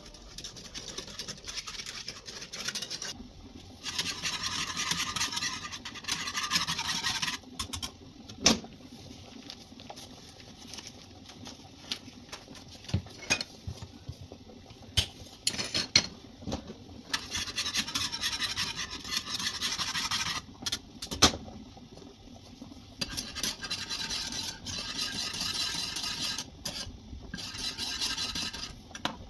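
Kitchen utensils scraping and rubbing against a bowl or pan in several stretches of a few seconds each, broken by a few sharp knocks of utensils on dishes.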